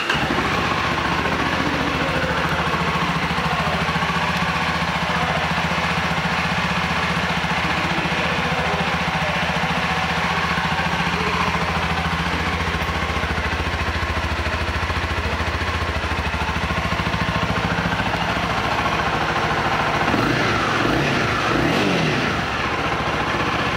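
2017 Honda CBR300R's 286 cc single-cylinder engine, all stock, idling steadily just after being started. Near the end the throttle is blipped a couple of times, the pitch rising and falling back to idle.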